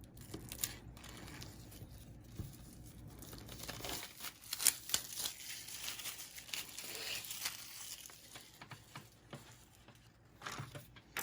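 Packaging being torn and crinkled by hand as the game board is unwrapped, in irregular crackling bursts that are busiest in the middle.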